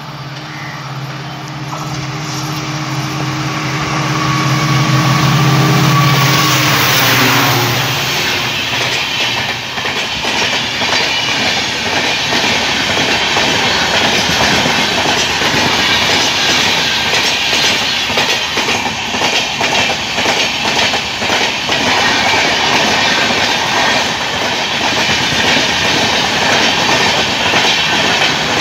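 An Indian Railways diesel locomotive passes at speed with a low engine drone that drops in pitch as it goes by, about seven seconds in. LHB passenger coaches follow, rushing past with a fast, steady clatter of wheels over the rail joints.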